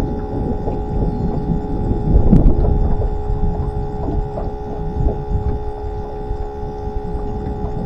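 A boat's bait-tank aerator pump whining steadily, a constant hum with several held tones, over a strong low rumbling noise, with a single sharp click about two and a half seconds in.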